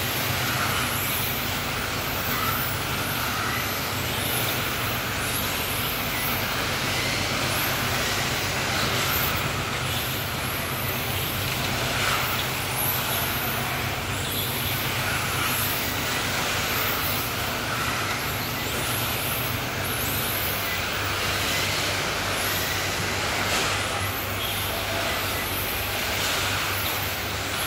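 Electric 1/10-scale RC touring cars racing, their motors giving high-pitched whines that rise and fall again and again as the cars accelerate and brake through the corners. A steady low hum runs underneath.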